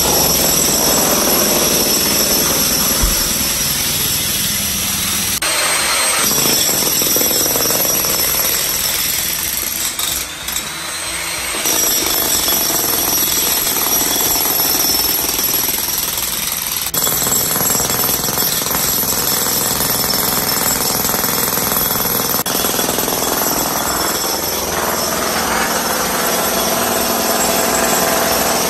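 Jackhammer hammering continuously, breaking up a concrete floor slab to get at the old cast iron drain pipe beneath, with a few abrupt changes in the sound where one clip cuts to the next.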